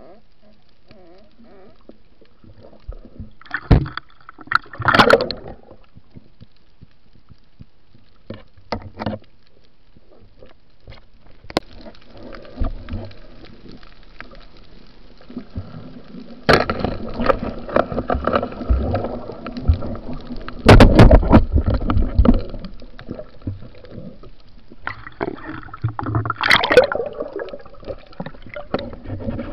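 Water gurgling and rushing around an underwater camera during a night spearfishing dive, with scattered sharp clicks and knocks. The water noise grows louder in the second half, with strong bursts.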